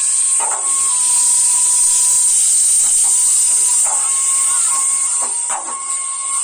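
Fireworks spraying sparks with a loud steady hiss, broken by several sharp pops.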